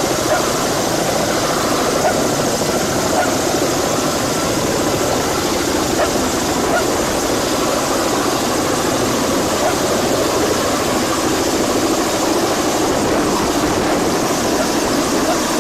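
Helicopter running: a steady, loud mix of engine noise and rapid rotor chop.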